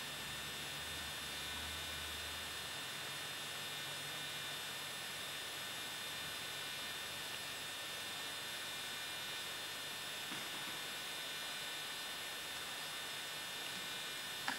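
Steady electrical mains hum with a constant hiss: background recording noise, with no distinct taps or other events.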